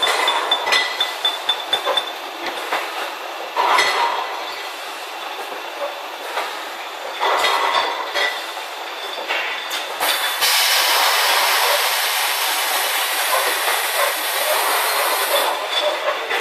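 Beer bottle filling machine running, with mechanical clatter and clinks of glass bottles and a rapid ticking in the first two seconds. About ten seconds in, a loud even hiss starts suddenly and cuts off about a second before the end.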